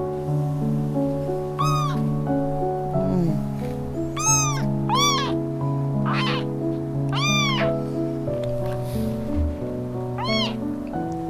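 A young munchkin kitten meowing about six times, short high-pitched calls that rise and fall in pitch, over background music.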